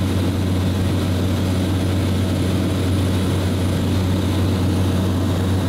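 Light propeller aircraft's engine and propeller running steadily, heard from inside the cabin as a constant low hum with a noisy rush above it.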